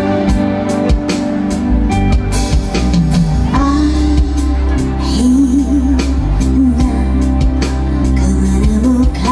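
Live band music with a woman singing over the accompaniment; her voice comes in about three and a half seconds in, holding wavering sung notes.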